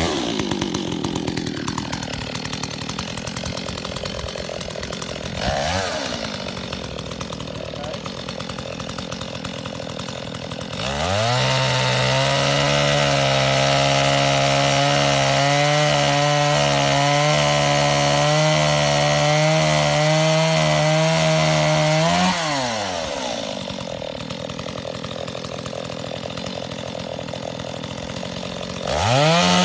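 Two-stroke petrol chainsaw running after a pull start: idling with a brief blip of the throttle about five seconds in, then revved up and held at high revs for about eleven seconds, dropping back to idle, and revving up again near the end.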